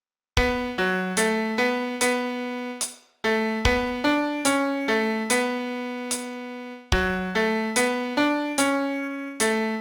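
Piano playing a slow song melody one note at a time, each note struck and left to ring and fade, in phrases broken by short pauses about three seconds in and near seven seconds.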